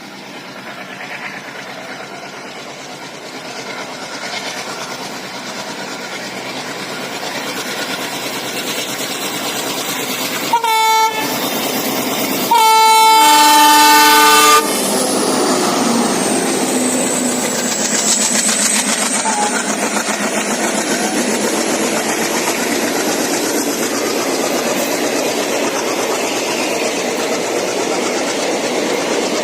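ALCo diesel locomotive approaching, its engine chugging louder and louder, then a short horn toot and a longer multi-tone horn blast about two seconds later. It then passes close by with a high whine that dips in pitch and rises again, followed by the coaches rolling past with wheel clatter.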